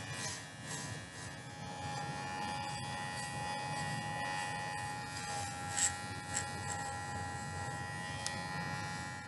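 Corded electric hair clippers buzzing steadily as they shave through a dog's coat, with a couple of light clicks about six seconds in.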